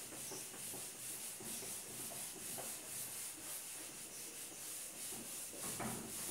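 Board eraser rubbing across a whiteboard, wiping off marker writing in quiet, uneven strokes.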